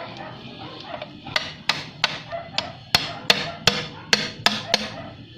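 A hammer striking metal engine parts in a quick series of about a dozen sharp blows, about three a second, starting just over a second in.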